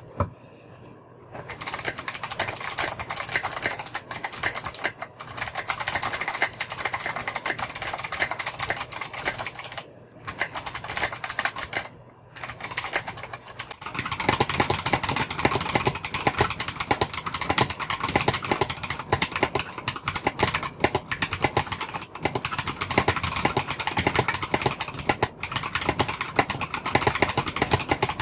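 Rapid, continuous typing on clicky mechanical keyboards fitted with jade clicky switches (Kailh Box Jade and Dark Jade) and sculpted SA/OSA keycaps. The typing breaks off briefly twice, and about halfway through the sound changes to the second board, which has a fuller, lower clack.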